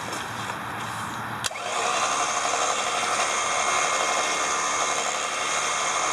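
A winch solenoid clicks in once, about one and a half seconds in, and the Smittybilt winch's electric motor starts and runs steadily. The solenoid is engaging cleanly on a test after sitting overnight, with none of the repeated clicking it makes when faulty.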